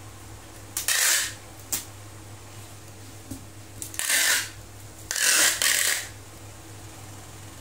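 Packing tape being pulled off a handheld tape dispenser gun and pressed along a cardboard box: three loud pulls of tape, the first about a second in and two more close together around four to six seconds, with a short click between the first and second.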